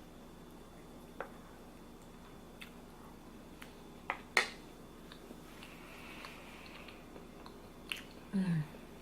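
Close-up eating sounds: chewing and wet mouth noises with scattered sharp clicks and taps, the loudest pair about four seconds in. Near the end comes a short, low voiced sound that falls in pitch.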